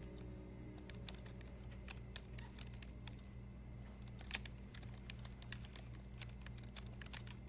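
Typing on a computer keyboard: irregular clicking of keys, several a second, over a steady low hum.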